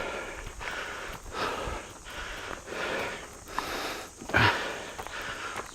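A hiker's heavy, quick breathing in and out from the effort of climbing a steep slope, with a thump about four and a half seconds in.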